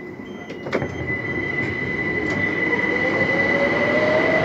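Electric passenger train running over a low rumble, with a steady high-pitched whine and a second whine that rises slowly in pitch and grows louder from about halfway through. A sharp click comes about a second in.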